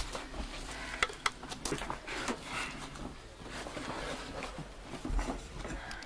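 Cavers scrambling over rock: irregular scrapes, scuffs and knocks of boots and hands on the cave wall, with clothing rustle and a dull thump about five seconds in.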